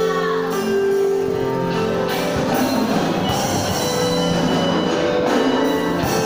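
A Christian band playing a song live: held keyboard and synth chords over bass, with a few drum strokes.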